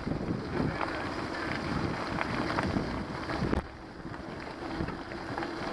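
Wind buffeting the microphone of a camera on a moving mountain bike, over the rumble of tyres rolling on a gravel track. It eases for about a second a little past halfway.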